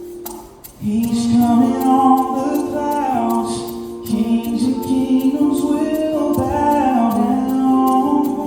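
Vocal music: several voices singing a slow harmony, entering about a second in over a held chord and a steady ticking beat.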